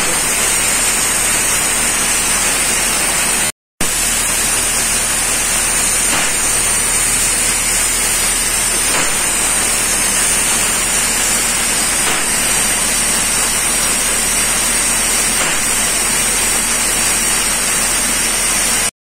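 Steady, loud hiss of compressed-air painting equipment in a shipyard, with the portable air compressor and paint-spraying pump running. It holds even throughout, apart from a short break about four seconds in.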